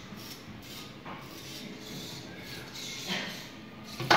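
Small servo motors of a hobby robot arm whirring faintly in short spurts as the arm is moved by joystick, with a sharp click right at the end.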